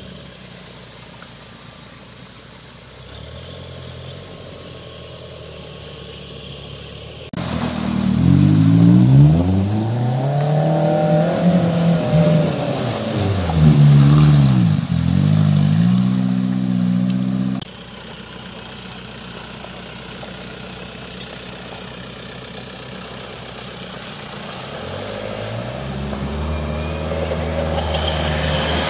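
Off-road 4x4 SUV engines revving hard through mud and water, the pitch swinging up and down with each burst of throttle, with water splashing. The loudest stretch lasts about ten seconds in the middle and cuts off suddenly; near the end another engine revs up steadily.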